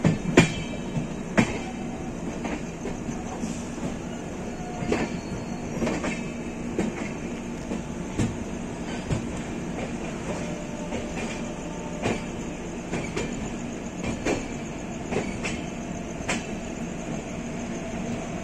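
Wheels of a moving Humsafar Express passenger coach, heard from its open door: a steady rumble broken by irregular sharp clicks as the wheels cross rail joints and points.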